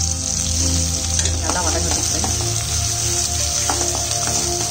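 Sliced onions, garlic, ginger and green chillies sizzling steadily as they fry in hot oil in a metal pan, stirred with a metal ladle that scrapes the pan.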